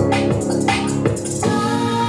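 Electronic music played at full volume through a small portable Bluetooth speaker: a beat of sharp hits over held synth notes, the hits dropping out about one and a half seconds in, leaving the sustained notes.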